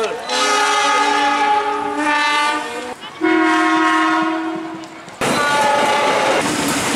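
Train horns sounding long, steady chords, one after another across abrupt cuts. The strongest is a low chord about three seconds in that fades over the next two seconds. Near the end comes the wheel-on-rail noise of a train passing close.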